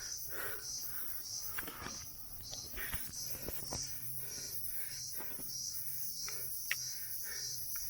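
Insects, crickets or cicadas, chirring in a steady high-pitched chorus that pulses regularly, with a few faint knocks.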